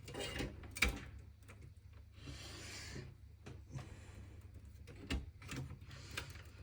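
Hands handling the PC's cables and case parts: a sharp click, a scraping rub lasting about a second, then a knock.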